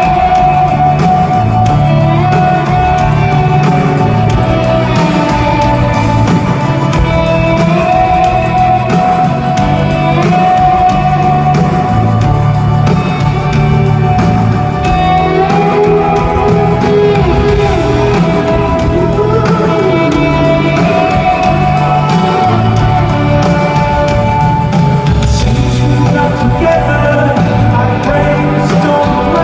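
Live pop-rock band playing a slow song with lead singing, heard from the audience in a large arena.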